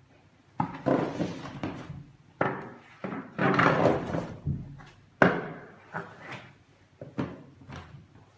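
Thin flexible stone veneer sheet being unrolled and bent by hand: rustling, crackling flexing noise broken by several sharp slaps, the loudest about five seconds in.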